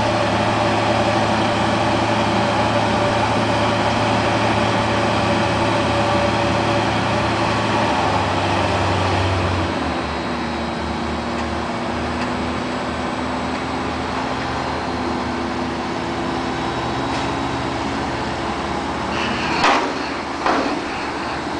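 Farm tractor diesel engine running steadily while its tipper trailer unloads silage, the engine note dropping a little about halfway through. Two sharp metallic knocks near the end.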